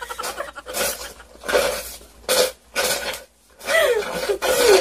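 Frozen slush drink slurped through a plastic straw in several short, raspy sucks. A voice with falling pitch comes in near the end.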